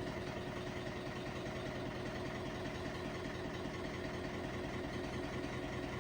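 LG WT7600HVA top-load washing machine running early in a normal cycle: a steady motor whine over an even mechanical noise.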